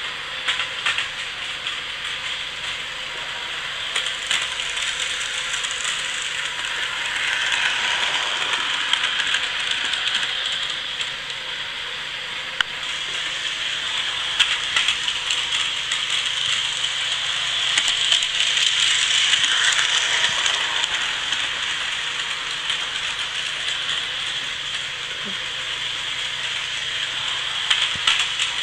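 HO scale electric model train running around its track: a continuous whirring rattle of the small motor and wheels on sectional rail, growing louder twice as it comes round nearer.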